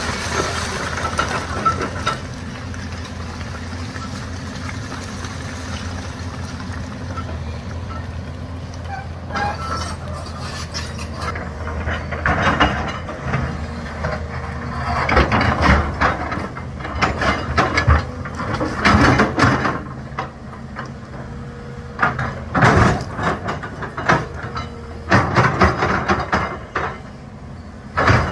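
Doosan tracked excavator's diesel engine running steadily under load while its steel bucket shoves and scrapes rock. From about ten seconds in, repeated loud grinding and clattering of broken stone against the bucket comes every few seconds.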